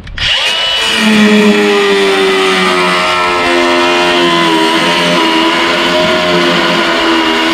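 Cordless angle grinder spinning up with a rising whine, then cutting through a rusted truck-bed bolt, its whine wavering and dipping in pitch as the cut-off wheel bites into the steel.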